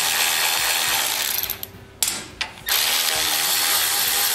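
Cordless electric ratchet with a 10 mm socket spinning off a small engine's carburetor mounting nuts. It runs steadily, stops about a second and a half in, gives two short blips, then runs steadily again from just under three seconds in.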